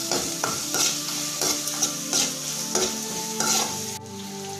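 Chopped shallots sizzling in hot oil in a metal kadai, stirred with a perforated metal ladle that scrapes the pan in repeated strokes. The sizzle drops away suddenly near the end.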